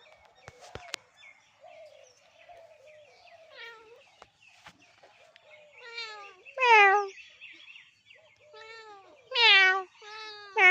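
A cat meowing over and over, each meow sliding down in pitch, the calls growing louder through the second half, with three loud meows near the end. Faint bird chirping goes on behind.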